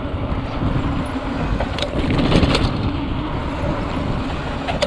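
Mountain bike riding down outdoor steps: a steady rumble with occasional sharp clicks and knocks from the bike jolting over the steps.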